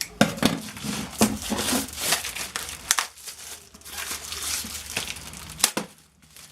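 Cellophane wrapping crinkling and crackling in irregular bursts as it is pulled and crumpled off a picture frame, with a sharper click near the end.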